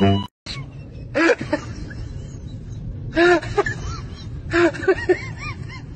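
A snatch of music cut off at the start, then short rising-and-falling cries in four brief groups over a steady low rumble.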